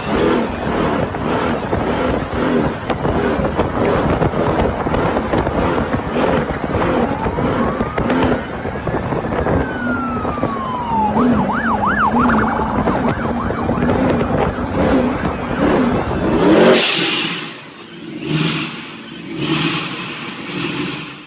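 Jeep Grand Cherokee SRT8 V8 engine revving hard and running loud under throttle. A high wailing pitch rises and falls in the middle, then wavers quickly for about a second. Near the end the sound drops to quieter, intermittent noise.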